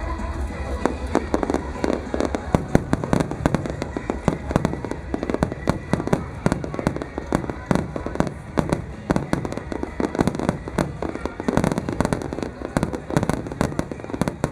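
A fireworks barrage: many shells bursting in quick, overlapping succession, a dense run of sharp bangs and crackles that keeps going throughout.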